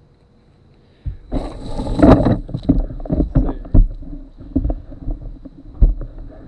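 Handling noise: a burst of rustling followed by irregular knocks and bumps, starting about a second in, with no motor running.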